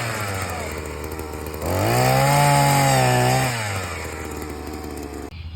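Small engine of a power post-hole auger running, revving up about two seconds in, holding high for a couple of seconds while boring, then dropping back to a lower speed. It cuts off abruptly near the end.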